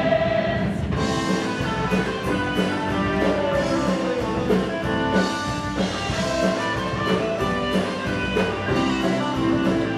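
A rock band plays an instrumental stretch with electric guitar and a drum kit keeping a steady, driving beat. The cast's held sung note cuts off under a second in.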